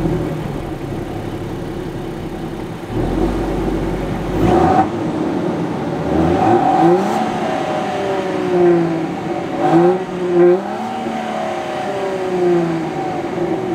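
The 2023 Land Rover Defender 130's 3.0-litre inline-six mild-hybrid engine heard at the tailpipe, cold-starting and settling to idle. From about four seconds in it is revved in a series of quick throttle blips, each rising and falling back to idle.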